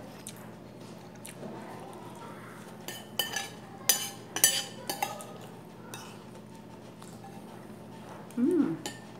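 Metal spoons scraping and clinking against ceramic dinner plates while eating, with a cluster of sharp clinks about three to five seconds in and a few lighter ones after.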